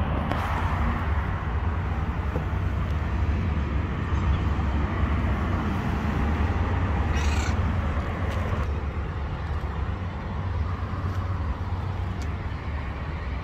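A kitten meowing, with one clear high-pitched meow about seven seconds in, over a steady low rumble.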